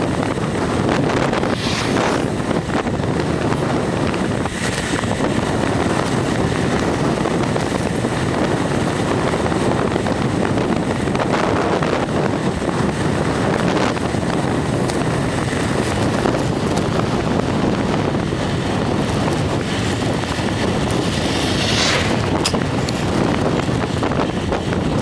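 Wind buffeting the microphone of a camera moving along a road: a steady rushing noise, with a few brief louder gusts.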